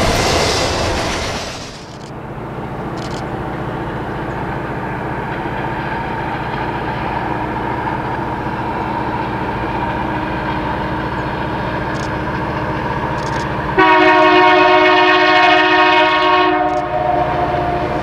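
Distant CN freight train led by three EMD SD75I diesel locomotives, with a steady low rumble as it approaches. Near the end the lead locomotive's air horn sounds one long multi-note chord lasting about three seconds. A loud opening sound fades out over the first two seconds.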